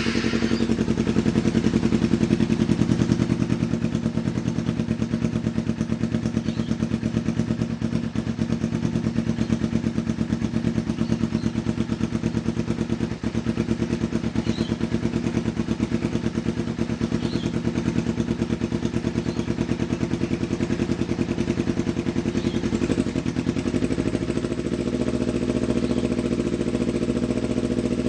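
2010 Kawasaki Ninja 250R's parallel-twin engine idling steadily through a freshly fitted Yoshimura slip-on exhaust, just after starting; the idle note shifts slightly about twenty-four seconds in.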